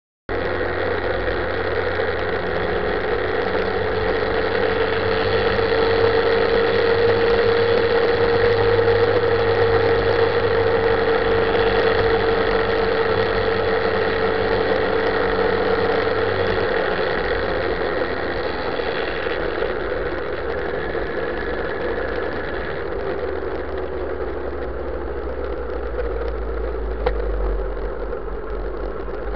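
Motorcycle engine running at steady road speed under the rush of riding wind, heard from a camera on the bike's dashboard. The audio cuts in abruptly; about two-thirds of the way through the engine's hum fades and the wind hiss drops as the bike slows, with a single sharp click near the end.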